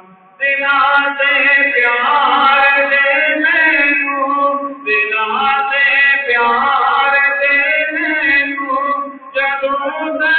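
A young man reciting a Punjabi naat unaccompanied, singing long held phrases with short breaks about halfway through and near the end.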